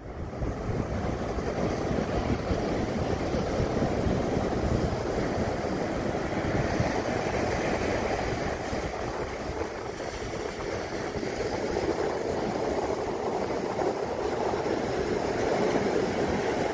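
Steady rushing of ocean surf breaking and washing up a sandy beach.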